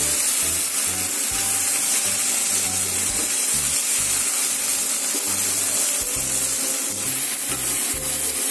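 Cubed idli and vegetables sizzling in oil in an aluminium kadai, stirred with a spatula as they stir-fry. A steady hiss runs throughout.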